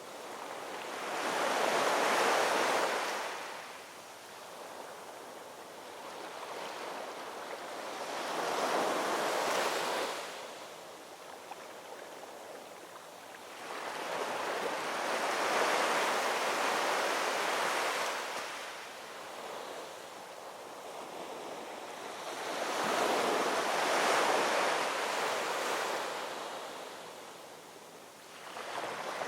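Ocean waves rolling in and washing up, each breaking wave rising to a rushing hiss and then fading, about every seven seconds, four times.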